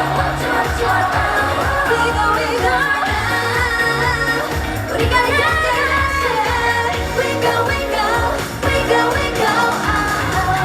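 Upbeat K-pop song with female vocals singing over a backing track with a steady, pulsing bass beat.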